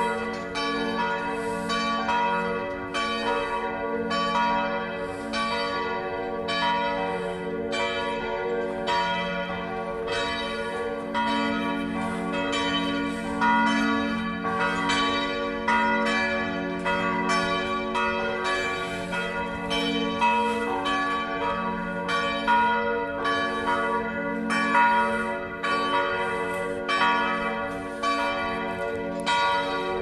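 The Felsenkirche's church bells ringing: a steady, unbroken run of strokes whose tones overlap and ring on between strikes.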